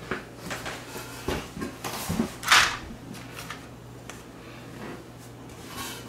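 Things being handled and knocked about while someone fetches a roll of double-sided tape: scattered knocks and clatters, the loudest a brief rattle about two and a half seconds in and another knock near the end, over a faint steady hum.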